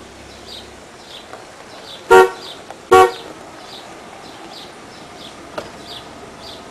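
Two short toots of a car horn, a little under a second apart. Faint high chirps repeat about twice a second throughout.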